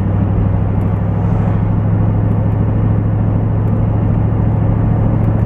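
Truck cab interior noise while driving: steady engine and road drone with a constant low hum that holds one pitch.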